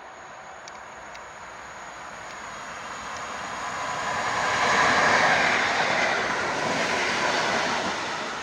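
An electric multiple-unit train approaching and running through the station without stopping. The wheel and rail noise swells to a peak about five seconds in, stays loud as the cars go by, then begins to fade near the end.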